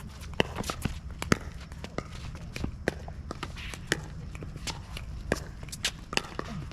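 Pickleball rally: irregular sharp pops of paddles hitting the plastic ball and the ball bouncing on the court, several in a row, with players' footsteps.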